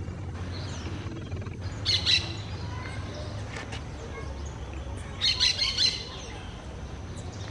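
Orange-chinned parakeet calling with high-pitched chattering notes: a short burst about two seconds in and a quicker run of five or six notes a little past the middle.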